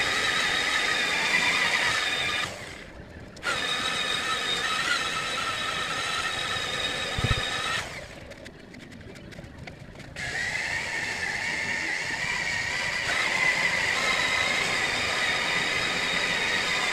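Handheld electric polishing machines running on a car's painted bonnet with a steady high whine. They stop briefly about two and a half seconds in, and for about two seconds around eight seconds in, before starting up again.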